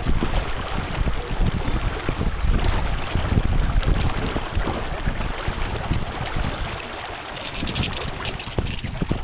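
Wind buffeting the microphone, with water rushing along the hull of a small sailboat under way. It is a steady, rumbling noise that eases slightly a little past the middle.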